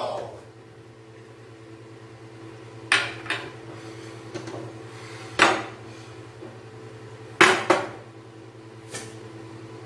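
Spoon and ceramic tableware clinking as food is served at the table: about six short, sharp clinks a second or two apart, over a steady low hum.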